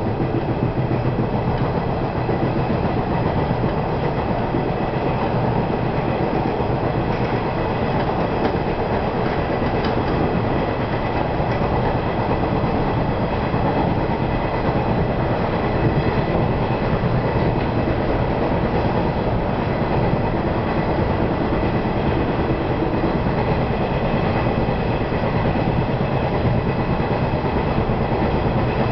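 JNR 475 series electric multiple unit running steadily along the line, heard from inside the driver's cab: a continuous rumble of wheels on rail and running gear, with a faint steady hum higher up.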